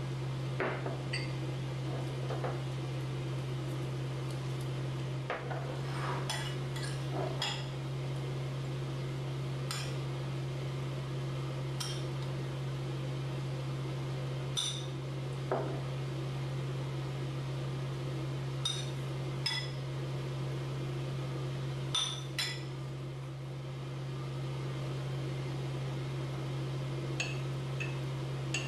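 Small glass jars clinking and a spoon tapping against glass as curry filling is spooned in, scattered light clinks over a steady low hum.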